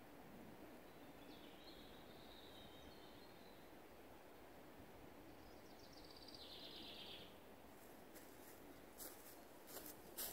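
Faint, quiet woodland ambience with distant birdsong: a short high call about a second in and a rapid trill around six seconds. Near the end come a few crunching footsteps on dry leaf litter.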